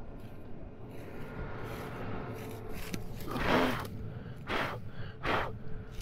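A man breathing hard as he crouches down in wheat stubble: one long breath with a voiced grunt a little over three seconds in, then two shorter puffs.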